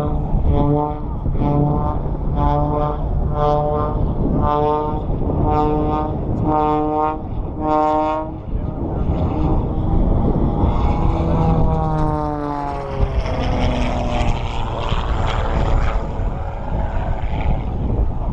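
Propeller aerobatic plane's engine overhead. At first it pulses about twice a second on a steady note. It then sweeps past with its engine note falling in pitch, followed by a rising rush of propeller and air noise.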